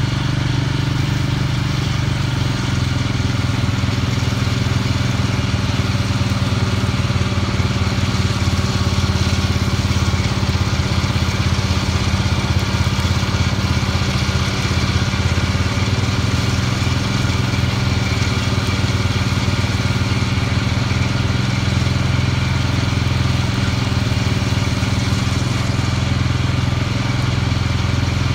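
Ford tractor engine running steadily under load, driving a Hesston 1000-series disc mower that is cutting standing hay.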